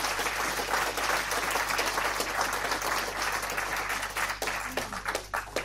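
Crowd applause, dense at first, thinning to a few scattered claps and stopping near the end.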